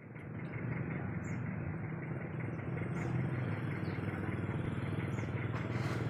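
Off-road tour jeep's engine idling steadily, a dense run of rapid firing pulses.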